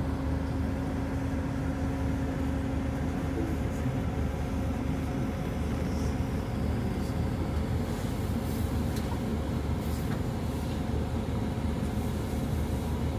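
Sightseeing bus driving along a mountain road, heard from inside the cabin: a steady engine and road drone, with a steady hum that stops about halfway through.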